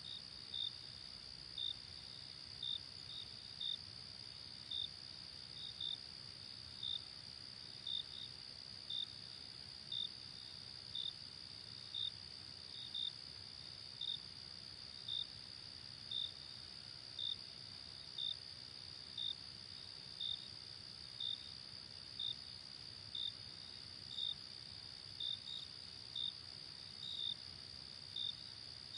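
Night insect chorus: a steady high-pitched trill with a cricket chirping about once a second over it, now and then in quick pairs.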